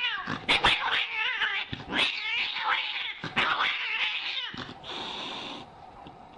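An angry domestic cat caterwauling in a loud string of short, wavering yowls for about four and a half seconds, then a short hiss.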